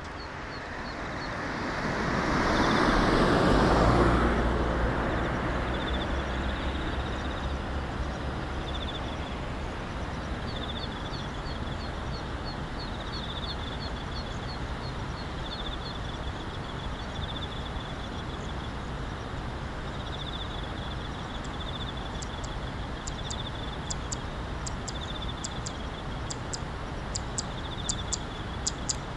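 A road vehicle passes close by a few seconds in, its rushing sound swelling and fading over about three seconds. After that a steady low rumble, the distant jet engines of a Boeing 767-300 on final approach, runs under rows of short high chirping calls, with insects clicking near the end.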